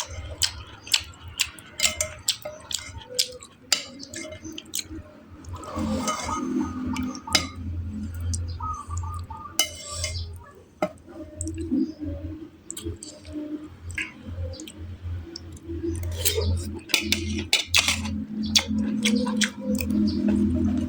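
Eating sounds: chewing with many sharp wet clicks, and now and then a clink of cutlery on a dish.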